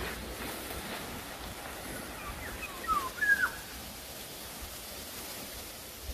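Bird calls: a few short notes that glide downward, about three seconds in, over a faint, steady outdoor background.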